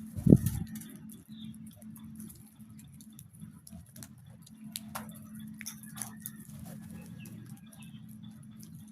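Birds moving about, with scattered light ticks and pattering. One loud low thump comes shortly after the start, over a steady low hum.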